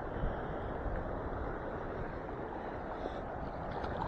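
Steady wind buffeting the microphone over small lake waves lapping at the shore.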